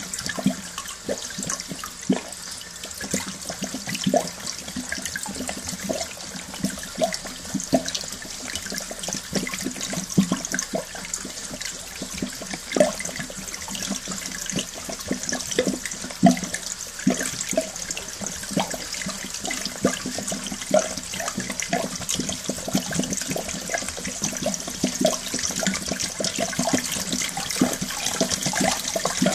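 Sludge-laden flush water from a central-heating circuit gushes steadily from a hose into a toilet bowl, splashing and gurgling irregularly as it goes.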